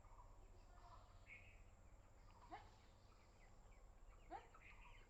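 Near silence: faint outdoor background with a steady low hum and two brief, faint bird chirps, about two and a half and four and a half seconds in.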